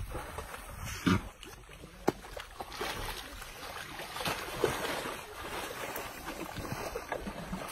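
Wet mud and water sloshing and slapping as baby elephants roll and wallow in a mud pond, with a few sharper splashes, the loudest about a second in.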